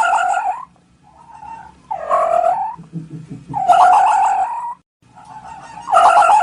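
A farm animal calling over and over: about four loud calls of roughly a second each, with fainter calls between them.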